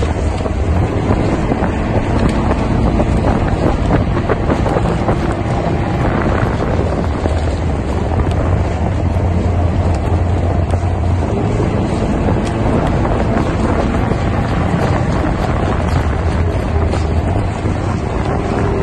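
Wind buffeting the microphone, with a steady low rumble underneath.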